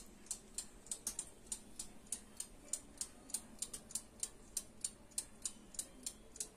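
Oven's mechanical wind-up timer ticking steadily, about four even ticks a second, as it counts down the baking time.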